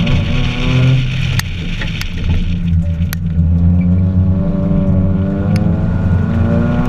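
Mazda3's naturally aspirated 2.0-litre four-cylinder engine, fitted with an aftermarket intake and header, revving hard through an autocross run. The engine note climbs, drops about a second in as the throttle comes off, then climbs steadily again through the rest. A steady hiss fades out after a couple of seconds, and a few sharp ticks are scattered through.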